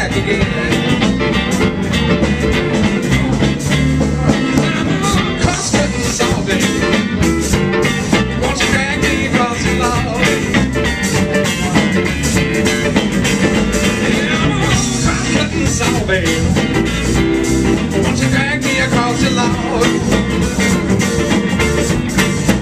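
Live blues band playing with electric guitar, bass guitar and drum kit, here in an instrumental stretch without sung lyrics.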